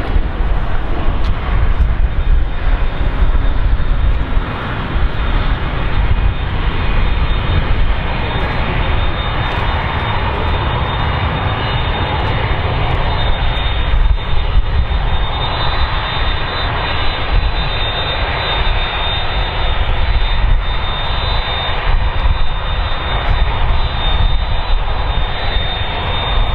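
Four General Electric F138 turbofans of a Lockheed C-5M Super Galaxy running at taxi power: a steady jet rumble, joined about halfway through by a high thin fan whine.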